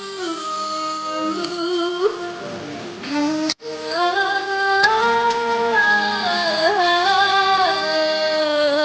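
Background music: a slow Chinese pop ballad, its melody carried in long held notes. It drops out for an instant about three and a half seconds in.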